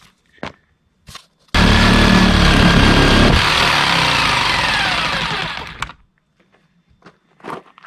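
A power tool's electric motor starts suddenly and runs loudly for about two seconds, then is switched off and spins down, its pitch falling as it fades over about three seconds.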